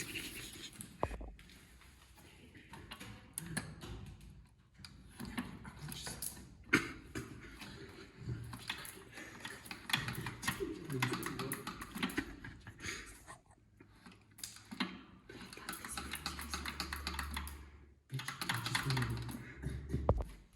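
Rapid, irregular clicking and crackling with patches of rustling noise, and a short low hum near the end.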